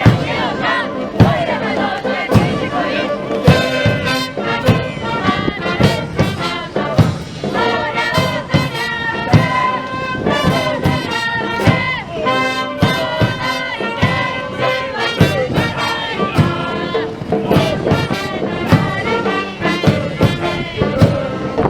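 A cheer squad's brass band playing a cheer song over steady drum beats about once a second, with the squad shouting in unison near the start and end.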